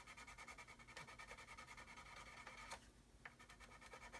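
Faint, rapid scratching of a sanding stick rubbed back and forth on a plastic model hull, with a short break about three seconds in.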